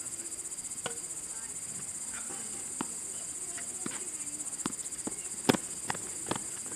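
Crickets chirring in a steady, fast-pulsing chorus, with several sharp knocks of a tennis ball off racquets and the court, the loudest about five and a half seconds in.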